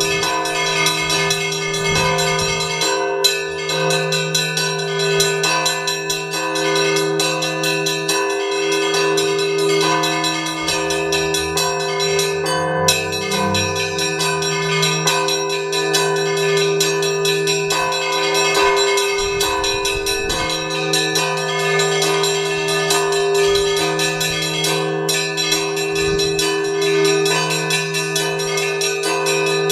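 Russian Orthodox church bells (zvon) on a belfry of five bells: fast, continuous strikes of the small bells ring over the long, steady hum of the larger bells.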